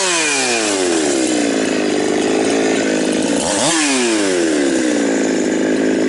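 Two-stroke chainsaw at full throttle cutting into wood. Its pitch drops sharply in the first second as the chain bites, holds lower under load, then rises briefly about three and a half seconds in and drops again as it bites back in.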